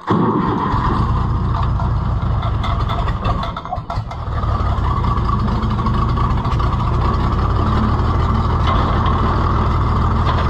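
Oliver 1655 tractor's six-cylinder gasoline engine starting and running, with a brief dip in level about four seconds in, then running steadily. It is running on five cylinders: cylinder number five has no compression and is dead, which the owner fears is internal engine damage.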